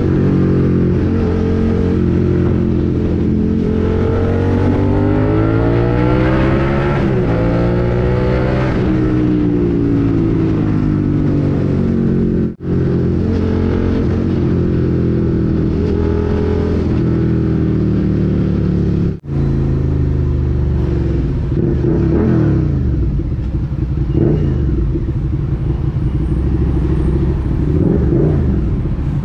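Suzuki SV650's 90-degree V-twin through an SC-Project slip-on exhaust, heard from the rider's seat, pulling up through the revs with pitch drops at the gear changes. The sound drops out for an instant twice, and toward the end it runs lower and less evenly as the bike slows.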